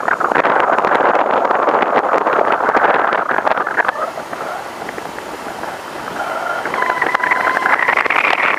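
Steady rush of wind and road noise picked up by a camera mounted on the hood of a moving car, with a brief dip in level about five seconds in. A few short high tones sound near the end.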